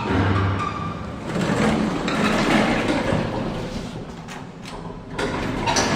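1960s Schindler lift's sliding doors moving, a loud rumbling slide with knocks, as the lift is tried for a ride and fails to work.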